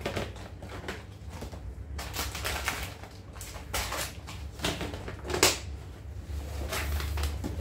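A clear plastic storage box being handled: the lid is lifted off and pressed back on, and the plastic food packets inside crinkle. The result is a string of clicks, knocks and rustles over a low steady hum.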